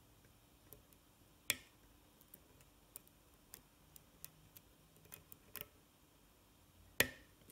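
Pick and tension wrench working the pins of a six-pin oval pin-tumbler cylinder: light, scattered clicks as pins are lifted and set. A sharper click comes about a second and a half in, and a louder one near the end as the core turns into a false set.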